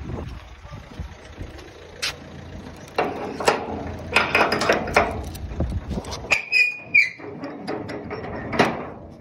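A padlock on a metal gate being unlocked with a key and lifted off the hasp, then the gate's steel sliding bolt drawn back: a run of metal clicks, rattles and clanks with a short squeak of metal on metal. A low rumble under the first part cuts off about six seconds in.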